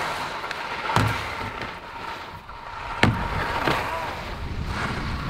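Skis sliding and scraping over snow, with two sharp knocks about one and three seconds in as the skis hit the park rails.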